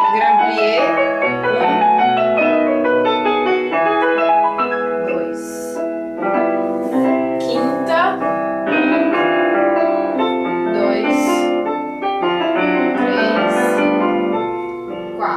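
Piano music accompanying a ballet barre plié exercise, with sweeping runs of notes.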